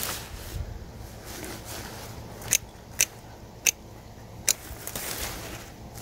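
Hand pruners snipping through sweet potato vines: four sharp snips in quick succession starting about two and a half seconds in, with soft rustling of the stems and leaves around them.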